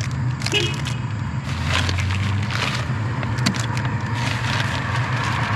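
Food packages being handled and rummaged through: plastic crinkling and scattered clicks and knocks, over a steady low hum like an idling vehicle engine.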